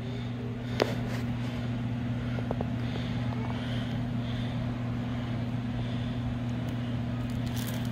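Steady low hum of a machine or appliance in the room, with a single faint click about a second in.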